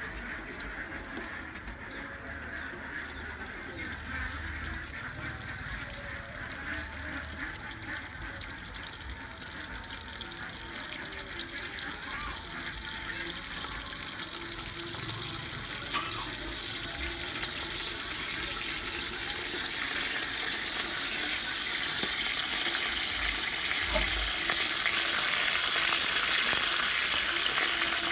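Steady hiss that grows gradually louder: a large steel pot of liquid heating on a charcoal clay stove, coming up toward the boil.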